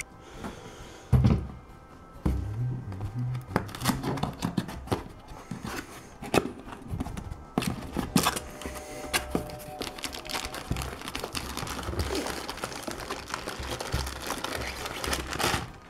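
A cardboard box being opened and handled: a loud thump about a second in, then repeated knocks, taps and scrapes of the cardboard flaps and the packing inside.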